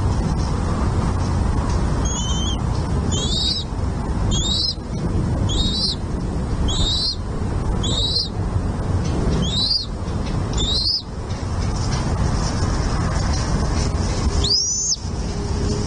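Bald eagle calling: a chattering series of eight high, wavering chirps about one a second, then one longer rising-and-falling whistle near the end. A steady low background rumble runs underneath.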